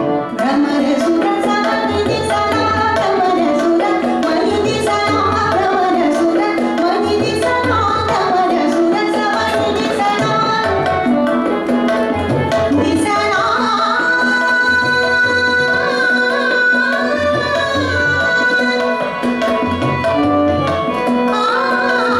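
A woman singing a Marathi natya sangeet song in ornamented classical style, with tabla playing a steady rhythm of sharp strokes and deep bass-drum tones, and an organ holding sustained notes under the voice.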